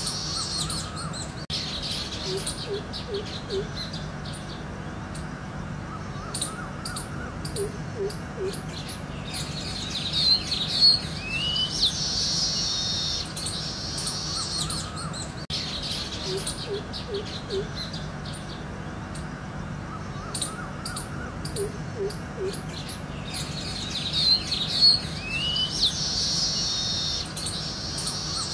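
Birds chirping and calling, with high chirps and trills, short triple pips and a steady low hum underneath; the same stretch of about fourteen seconds plays twice.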